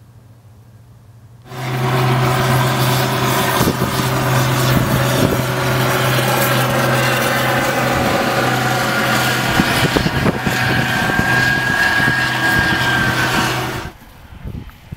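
Combine harvester running, a steady engine hum under a dense mechanical rush. It cuts in suddenly about a second and a half in and stops abruptly near the end.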